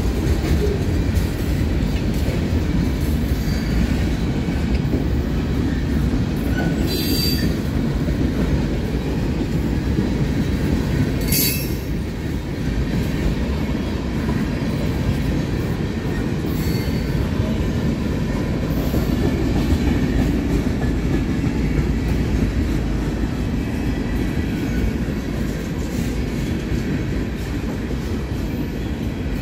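Freight train boxcars rolling past at close range, a steady rumble of steel wheels on rail. Brief high-pitched squeals cut through twice, about seven and eleven seconds in.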